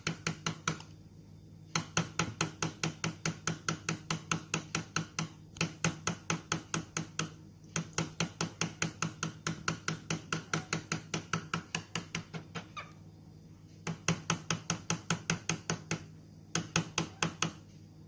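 A bird pecking at a hard surface: rapid, even taps, about five a second, in runs of several seconds broken by short pauses.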